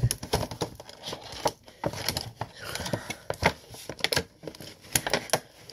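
Toy packaging being pulled apart by hand: plastic tray and cardboard crinkling, with many irregular clicks and rustles.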